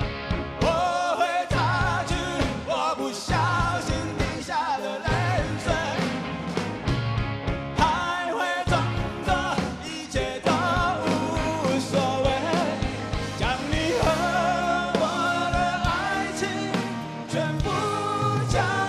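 Live rock band music: drums and bass with a wavering melodic lead line over them, between sung verses.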